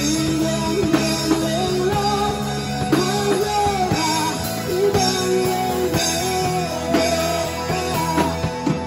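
Live rock band playing: a man singing over an electric keyboard, a bass guitar and a Ludwig drum kit.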